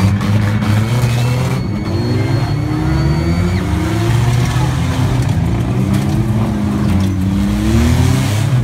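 Several demolition derby cars' engines running close by, revving so the pitch keeps rising and falling.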